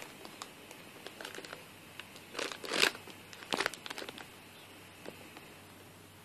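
Clear plastic packaging bag crinkling as it is handled, in short bursts about two and a half and three and a half seconds in, the loudest just before the three-second mark.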